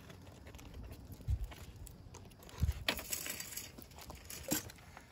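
Wood campfire burned down to glowing coals, crackling with scattered faint pops. A couple of dull knocks and a short rustle come near the middle.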